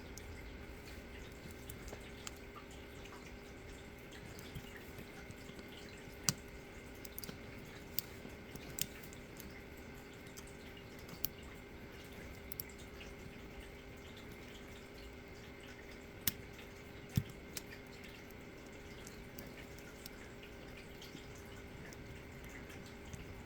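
Scattered small metallic clicks and ticks of a pick working the rotating discs of an ASSA D12 disc-detainer lock, coming irregularly every second or two over a faint steady hum.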